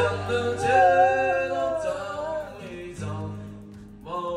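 A large husky-type dog howls along with a man singing and playing an acoustic guitar, a long wavering howl that rises and falls. The guitar chords drop out under the howl and come back about three seconds in.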